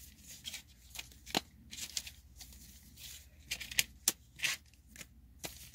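Foil booster packs crinkling and tapping against each other as they are shuffled by hand and set down, a string of short crinkles and taps.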